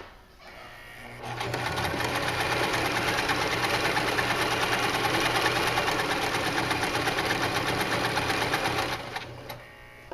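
Janome HD1000 sewing machine running steadily for about eight seconds at a straight stitch, starting a second or so in and stopping near the end, followed by a single click.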